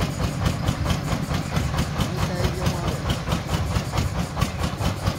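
Engine of a truck-mounted water-well drilling rig running steadily with a fast, even beat.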